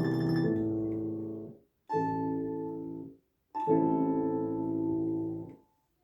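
Closing chords of a solo instrumental folk-song arrangement: three held chords, each stopping short, the last ending about five and a half seconds in.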